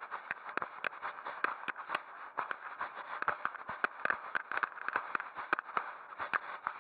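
Rapid, irregular clicks and scraping close to the microphone: handling noise from walking with a fishing rod and reel.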